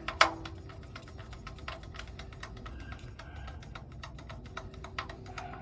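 Many quick, irregular clicks and light taps, like small tools or fittings being handled, with two sharp knocks at the very start, over faint background music.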